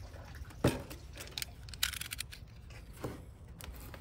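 Utility knife cutting the packing tape on a cardboard box: a sharp knock about half a second in, then scattered short clicks and scrapes of the blade on tape and cardboard.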